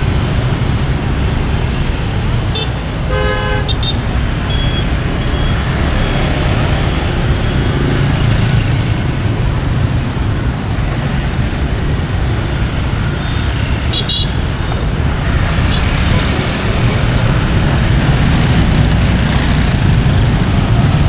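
Busy street traffic running steadily, with a vehicle horn tooting once about three seconds in and a short high beep around fourteen seconds in.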